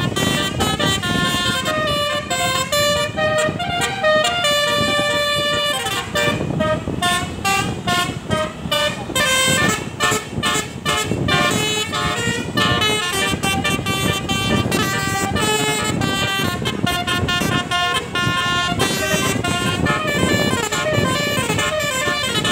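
Bus's basuri telolet horn playing a tune of stepped notes, quick staccato notes in the middle stretch, over the low noise of the bus running on the road.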